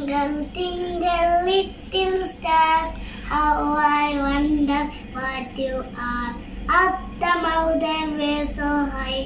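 A young boy singing a song solo, in sustained melodic phrases.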